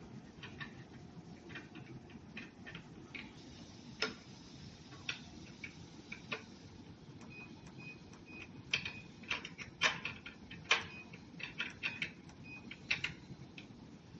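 Irregular light clicks and taps of hand work on a treadmill's parts, growing denser and louder in the second half, with a short high tone repeating in brief pulses over the same stretch.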